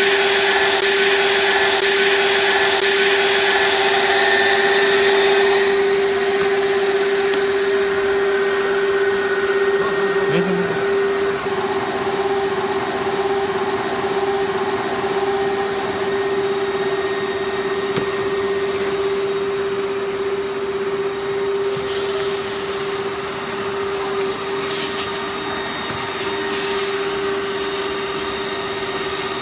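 Hot-glue profile wrapping machine running: a steady drone of motors and blowers with one constant whine held throughout, and extra hiss in the first few seconds.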